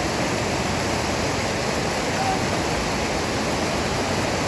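Fast-flowing river water rushing over rocks, a steady even roar of whitewater.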